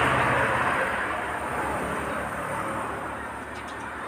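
Background rushing noise with a low hum, loudest at the start and slowly fading.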